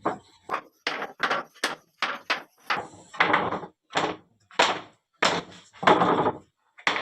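A quick, uneven run of sharp knocks and thuds, about two a second, each dying away quickly, like pieces of wood being struck or knocked together.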